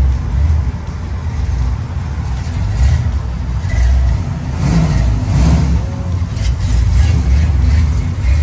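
Loud, low rumble of classic pickup-truck engines idling and pulling away, swelling and easing as they move off.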